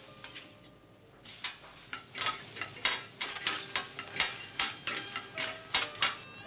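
Metal teppanyaki utensils, spatula and knife, clacking rapidly against a steel griddle. Several sharp hits a second in an irregular rhythm, each ringing briefly, starting about a second in.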